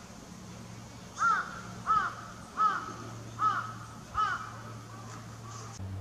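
A crow cawing five times in an even series, each caw short and arched, a little under a second apart.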